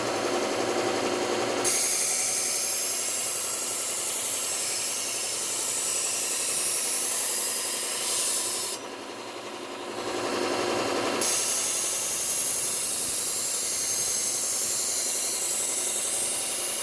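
Low-speed belt sander with a Cubitron 120-grit belt running while a kitchen knife edge is ground against it in two long passes with a short break between, a loud grinding hiss that raises a burr along the edge.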